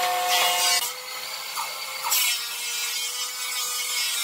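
A power tool cutting wood, its motor giving a steady whine under short noisy cutting passes about half a second in and again around two seconds in. Just under a second in the whine thins to a single lower tone and the sound gets quieter.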